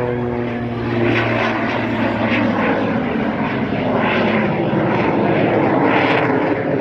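Jet Waco taperwing biplane's engine running hard overhead. Its note drops in pitch over the first second as the plane passes, then turns to a broad rush that grows louder as the plane climbs straight up.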